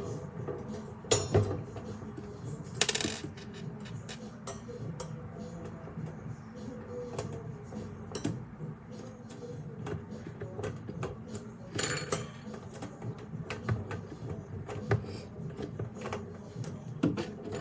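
Irregular small metallic clicks and clinks of a hand screwdriver working screws into a metal can rack, with a few louder knocks of metal parts.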